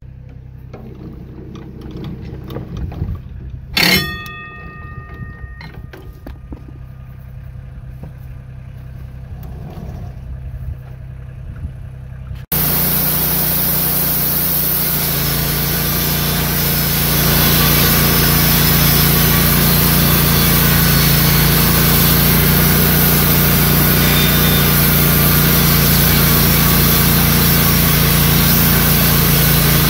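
Wood-Mizer LT15 GO portable bandsaw mill's engine running low and steady, with a sharp ringing metallic clank about four seconds in. About twelve seconds in the sound jumps abruptly to the engine at full throttle with the band blade sawing through a large log, loud and steady.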